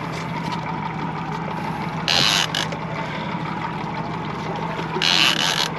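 Boat's outboard motors running steadily at low speed. Two short bursts of hiss, about two seconds in and again near the end, stand out over it.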